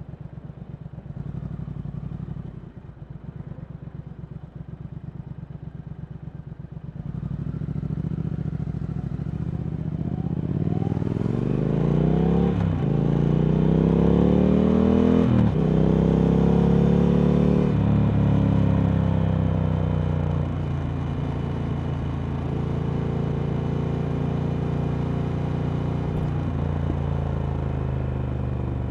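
Triumph Speed Twin 1200's parallel-twin engine through a Vance & Hines slip-on exhaust. It runs at low revs at first, then accelerates from about seven seconds in, the pitch climbing and dropping back at three upshifts. It then settles to a steady cruise.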